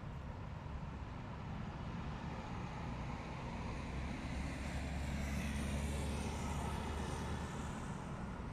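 Low rumble of a passing motor vehicle over a steady outdoor background hum. It swells to its loudest a little past the middle and then eases off.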